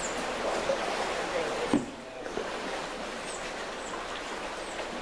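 Steady rush of river current, with a single bump a little under two seconds in and a few faint high chirps.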